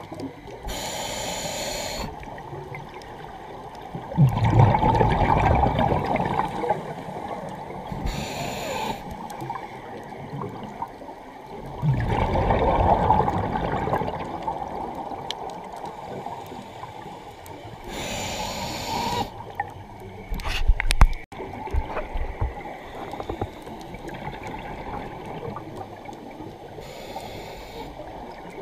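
Scuba regulator breathing heard underwater: four short hissing inhales about nine seconds apart, with loud gurgling bubble bursts of exhaled air after the first two. A few sharp knocks come about twenty seconds in.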